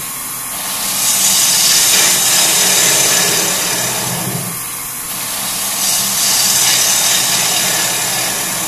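Bowl gouge shearing a spinning wooden bowl blank on a lathe, a loud hissing cut that swells and eases in two long passes, with the lathe's steady low hum beneath. It is the final finishing cut across the bowl's bottom.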